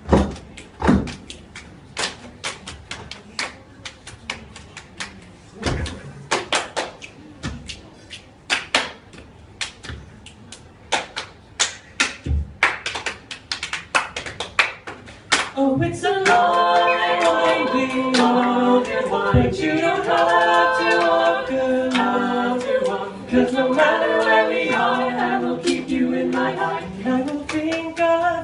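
Several people clapping a fast, intricate hand-clapping rhythm together, with no accompaniment. About fifteen seconds in the claps stop and an a cappella vocal group comes in on a harmony chord, then sings on in close harmony with no instruments.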